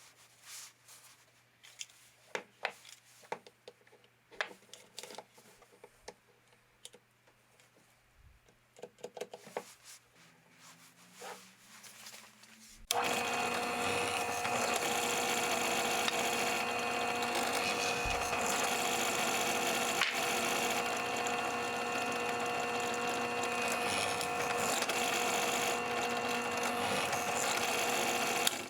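Scattered light knocks and clicks of wood and tools being handled. About thirteen seconds in, a power tool's electric motor starts suddenly and runs at a steady, even whine, then cuts off abruptly.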